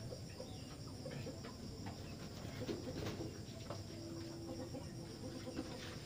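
Faint, short bird calls and scattered clicks over low background noise.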